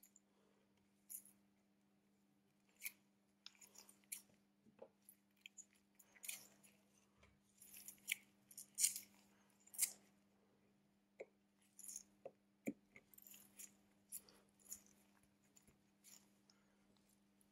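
Irregular small clicks and scrapes of hand tools and parts being handled on a Huawei P8 Lite 2017 smartphone during a screen replacement, busiest in the middle, over a faint steady hum.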